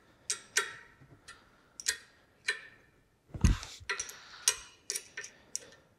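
Steel wrench clinking on the bolt heads of a tapered-bushing V-belt sheave on an electric motor shaft as the bolts are tightened a turn at a time: a dozen or so sharp, irregular metallic clinks. One duller knock comes about three and a half seconds in.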